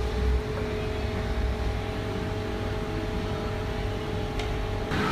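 A steady low mechanical rumble and hum with a few faint steady tones, with one faint click near the end.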